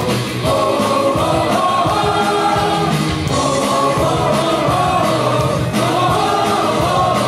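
Baseball cheer song with a sung melody over a steady, driving drum beat, playing loudly and without pause.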